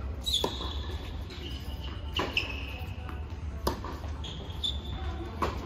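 Tennis balls struck by rackets in a doubles rally on an indoor hard court: four sharp hits, about one every one and a half to two seconds. Short high squeaks, typical of tennis shoes on the court, follow the hits, over a steady low hum.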